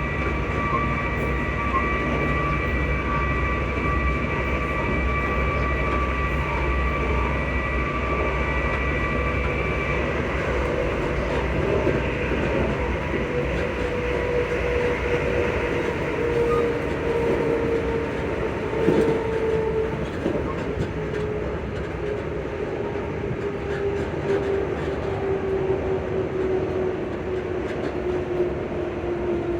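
Electric traction motors of a ScotRail Class 334 multiple unit heard on board while running, over a steady rail rumble. High steady whining tones cut out about a third of the way in, then a lower motor whine slowly falls in pitch.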